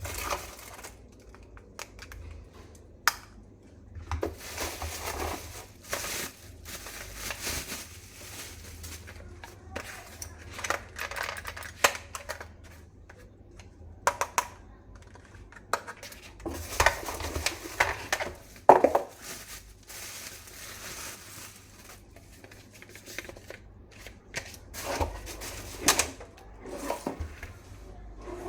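Hard plastic toy rifle parts being handled: irregular clicks, knocks and clattering with short stretches of rustling. The loudest knock comes about two-thirds of the way through.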